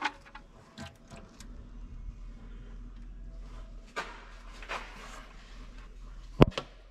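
Engine oil pouring from an open sump drain into a drain pan, a faint steady splashing, with scattered clicks and knocks of the drain plug and tools; the loudest is one sharp knock near the end.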